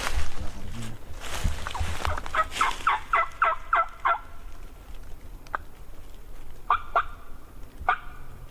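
Wild turkey gobbler gobbling: one fast rattling gobble of about eight quick notes a couple of seconds in, followed by a few shorter calls near the end.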